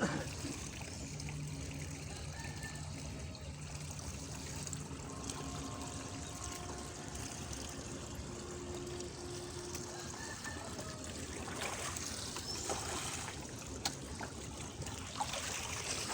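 Water trickling and running steadily, with a few splashes in the last few seconds.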